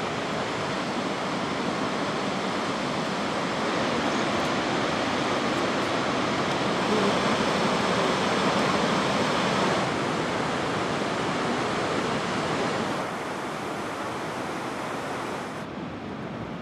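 Gullfoss waterfall's steady rush of falling water. It drops in level about thirteen seconds in and turns duller near the end.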